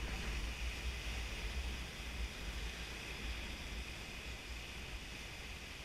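Lake waves breaking and washing onto a sand-and-pebble shore: a steady hiss of surf with a low, uneven rumble underneath.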